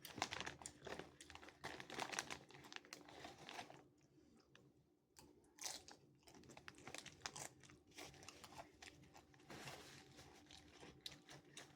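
Close-up crunching and chewing of chips, a quick irregular crackle of bites, with a pause of about a second and a half near the middle.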